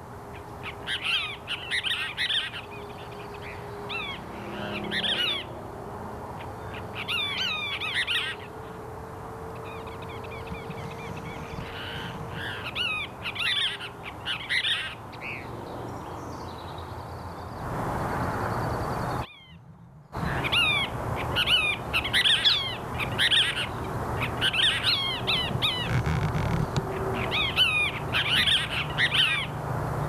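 Cassin's kingbirds calling: repeated bursts of quick, sweeping chatter notes. The sound drops out briefly about two-thirds of the way through.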